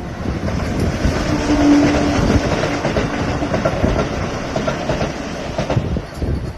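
Train running with a steady rattle of wheels, and a brief steady horn-like tone about a second in.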